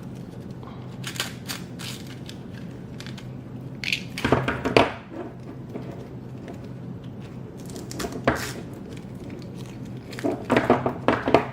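Handling noises as a Velcro battery strap is threaded through a plastic quadcopter frame: scattered rustling and light knocks in a few short clusters, over a steady low hum.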